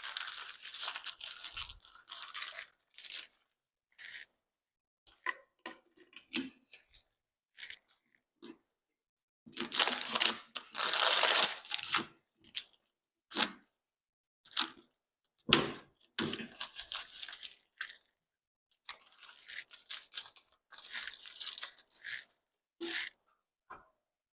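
Irregular scraping, crunching and knocking of things being handled and rubbed, in short bursts with a longer, louder scraping stretch about ten seconds in. There is no steady motor sound.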